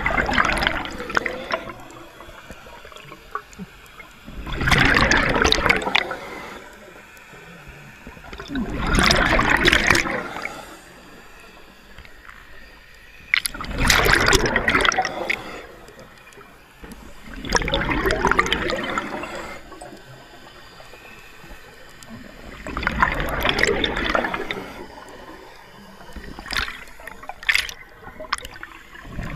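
Scuba diver breathing through a regulator underwater: a rush of exhaled bubbles about every four to five seconds, six times, each lasting a second or two. Two short sharp sounds come near the end.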